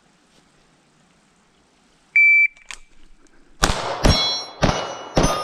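Shot timer's start beep about two seconds in, then four pistol shots about half a second apart, each followed by the ringing clang of a steel target plate being hit.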